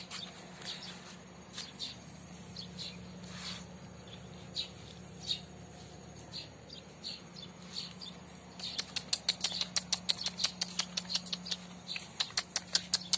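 Small birds chirping: scattered single high chirps, then from about nine seconds in a fast, even run of chirps, about six a second. A faint steady low hum runs underneath.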